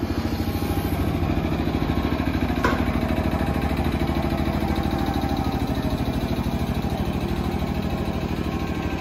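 JR 205 series electric train pulling away under power at low speed: its DC traction motors and gearing give a steady hum that pulses quickly, with wheel and rail noise beneath. A single sharp click sounds about two and a half seconds in.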